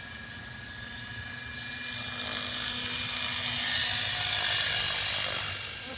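KDS 700-size electric RC helicopter flying, a steady high whine from its motor and gears over the swish of the rotor blades. It grows louder toward the middle and eases off near the end.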